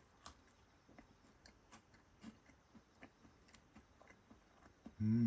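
Quiet close-up chewing of porcini-type mushroom tempura on rice: faint scattered mouth clicks and soft crunches, with one sharper bite-click soon after the start. A short hummed "mm" comes right at the end.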